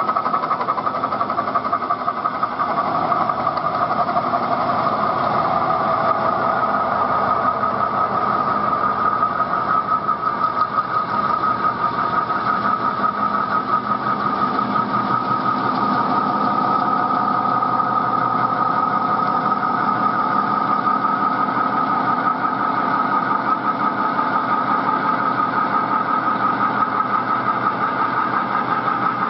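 CNC metal spinning machine running, its forming rollers working a large spinning metal dome: a steady mechanical drone with a fast pulse and a constant ringing tone over it.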